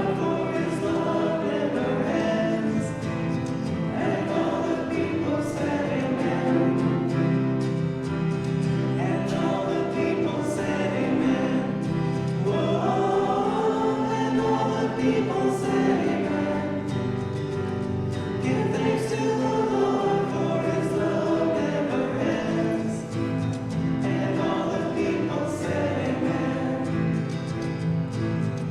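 A choir singing a Christian worship song with accompaniment, the voices holding long sustained notes over a steady beat.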